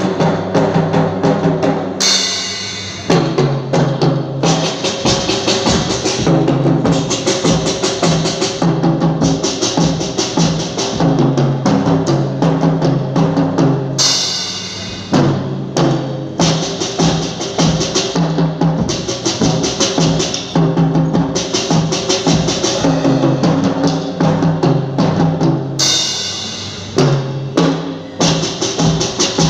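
Drum kit played live over backing music with a melody, a steady driving beat of kick drum, snare and cymbals. Three bright crash accents come about twelve seconds apart.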